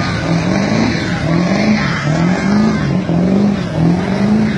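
Car engine revved hard over and over during a burnout, its pitch climbing and falling back about one and a half times a second.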